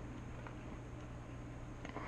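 Quiet workshop room tone: a steady low hum with a few faint, light clicks, as of small parts being handled.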